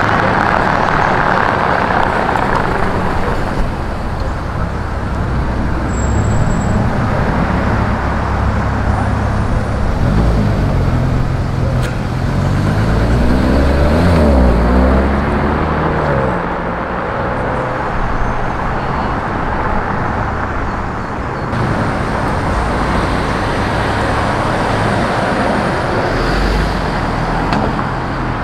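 City street traffic with cars driving past. About halfway through, one car's engine passes close, its note rising and then falling.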